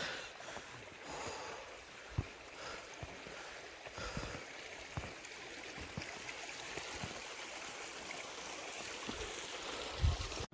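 Steady rushing noise with scattered dull low thumps, building slightly and cutting off suddenly at the end.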